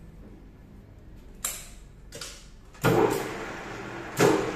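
Four sharp clanks over a faint steady hum; the last two are the loudest and die away over about a second.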